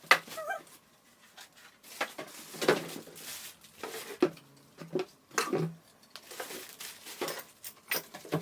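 Irregular light knocks, clicks and rustles of tricycle parts and packaging being handled, a few knocks about a second apart.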